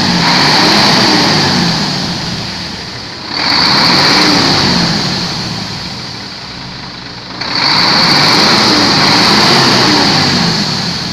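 Diesel truck engine revved three times, each rev swelling for two or three seconds before dying back, with a loud hiss on top. The engine is 'coughing' and blowing black smoke.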